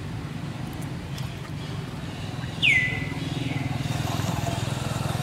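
Steady low rumble of an idling engine that grows a little louder about halfway through, with one short high chirp falling in pitch at the same point.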